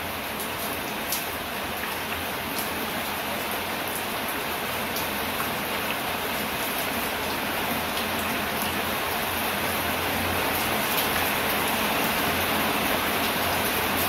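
Steady rain falling on bamboo and broad leaves: an even hiss with scattered ticks of single drops, growing a little louder in the second half.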